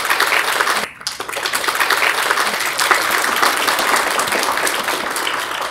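Audience applauding, with a brief break about a second in.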